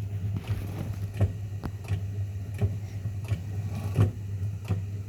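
Steady low electrical hum with irregular light clicks and taps, from hand work with tools on an iPhone 7 screen being separated from its glass.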